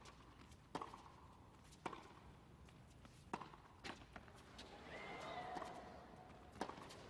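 Tennis ball being struck by rackets and bouncing on the court during a rally, heard as a series of sharp pops spaced a second or so apart. A faint squeak comes around five seconds in.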